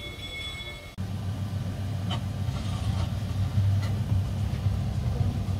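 Electronic win jingle of a skill game machine for about a second, cutting off abruptly. It is followed by a low, steady rumble with a few faint clicks.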